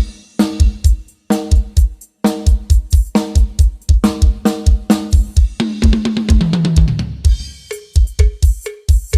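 Drum-kit sound-check track played loud through a sound system: deep kick-drum hits with snare and cymbals, and pitched drum hits that fall in pitch around six to seven seconds in.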